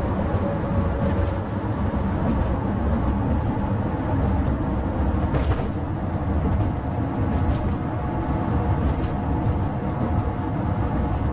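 Vehicle running, a steady low rumble of engine and road noise.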